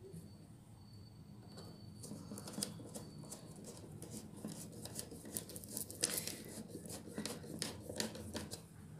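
Light, irregular clicks and scraping as an 8-inch woofer's frame is shifted by hand on a cloth-covered plywood box, lined up with its screw holes. The handling noise grows busier from about two seconds in.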